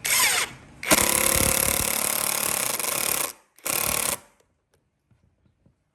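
Handheld power tool run in three bursts, a short one, a long one of about two and a half seconds, then another short one, before it stops.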